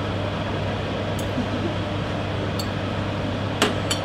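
Steady fan hum with a few light clinks of metal tongs against a ceramic plate, the loudest about three and a half seconds in.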